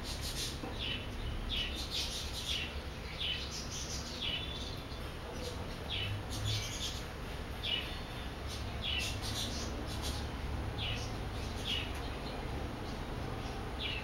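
Small bird chirping: short high chirps repeated every half second to a second, over a low steady hum.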